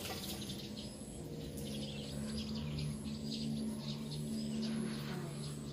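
Rural outdoor ambience: scattered bird chirps and insect sounds, with a low steady hum coming in about a second and a half in.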